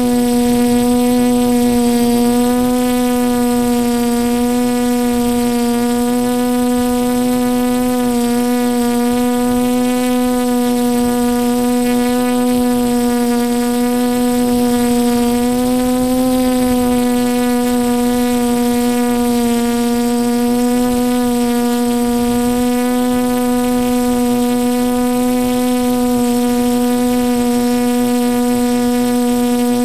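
Drone's motors and propellers buzzing steadily as it hovers, heard from its own onboard camera: one held pitch with many overtones, wavering slightly about halfway through.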